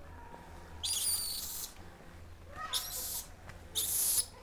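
Barbary macaques chirping up in a tree: three short, high-pitched calls about a second apart.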